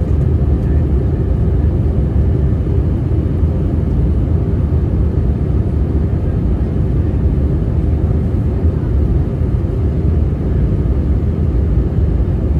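Steady low rumble inside the cabin of an Airbus A320-232 in descent: airflow and the IAE V2500 engines, heard from a window seat.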